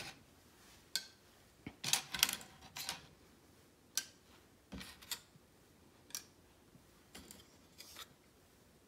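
Broken pieces of dry lasagna noodle clicking as they are picked off a wooden cutting board and pushed down into small crocks: a dozen or so light, sharp clicks at uneven intervals.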